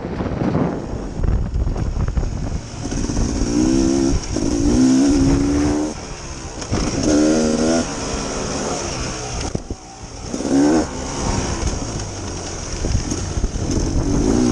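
Dirt bike engine revving up and down in repeated surges as it is ridden on a trail, with wind rumbling on the microphone.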